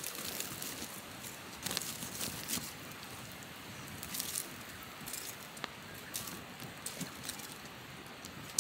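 Campfire crackling and popping irregularly, stirred with a stick so that it throws sparks.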